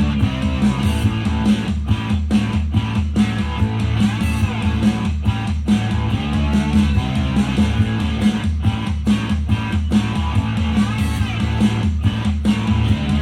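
A guitar-led pop song with a steady beat and heavy bass, played back through an Xdobo Sinoband Challenger 2020 Bluetooth speaker.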